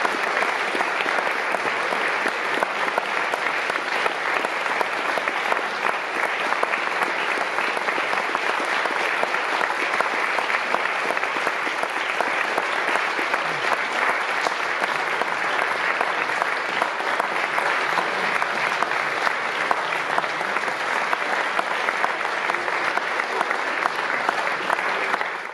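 Audience applauding steadily, many hands clapping at once, fading out at the very end.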